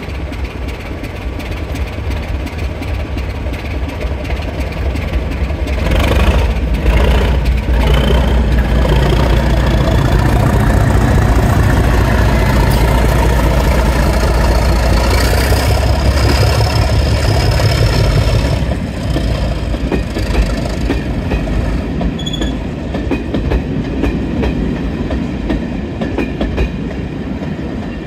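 Class 37 diesel-electric locomotive with its English Electric V12 engine working hard as it pulls away and passes. The heavy engine note builds about six seconds in, with a high whistle rising in pitch. The engine note falls away after about eighteen seconds, leaving the coaches rolling past with clickety-clack over the rail joints.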